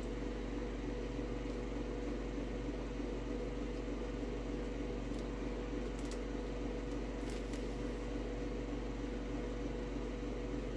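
Steady low hum of a running room appliance, with a few faint clicks scattered through.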